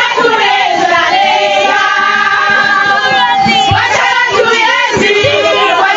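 A crowd of people singing together in chorus, many voices at once, loud.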